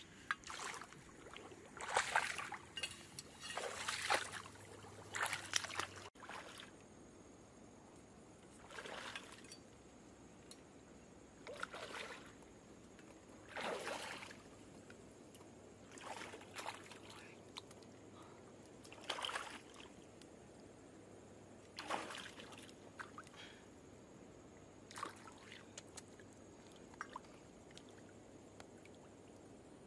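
Water splashing and sloshing in short, irregular bursts, several close together at first and then one every two to three seconds.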